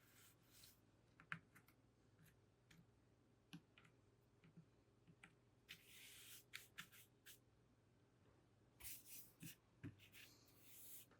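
Faint hand-cleaning of a computer keyboard: scattered small clicks and taps, with a few short rubbing or scrubbing sounds, the longest near the end.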